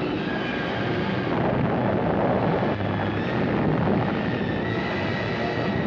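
Steady noisy rumble of an atomic blast's shock wave and dust-laden wind sweeping over a trench, as laid on an old newsreel soundtrack.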